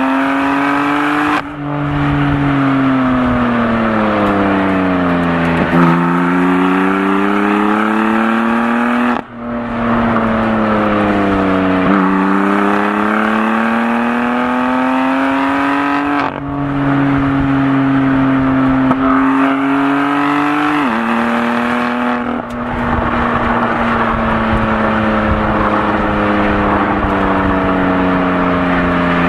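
2018 BMW M4 Competition's twin-turbo inline-six engine running under way, its pitch sinking and climbing in long sweeps as the car slows and speeds up. There are short breaks in the sound about a second and a half in, around nine seconds and around sixteen seconds, and a step down in pitch a little after twenty seconds.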